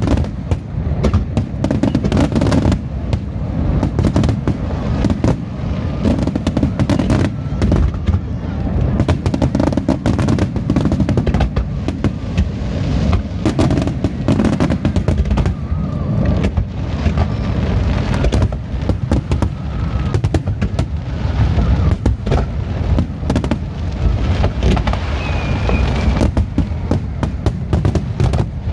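Aerial fireworks bursting in a rapid, unbroken barrage of bangs and crackles.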